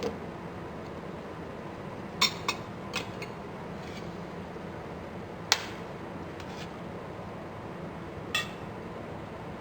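A few short, sharp clinks of metal kitchenware against a cooking pot, the loudest a little past the middle, over a steady low hum.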